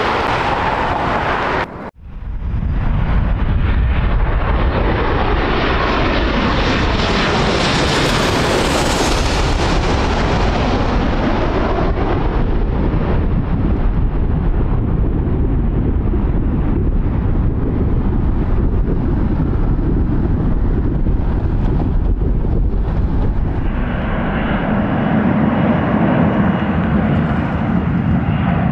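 Jet airliner engines, loud and close, the roar-like hiss swelling and then falling away as the aircraft passes, with gliding engine tones. About 24 seconds in, the sound changes to the engines of a Frontier Airbus A321 rolling on the runway.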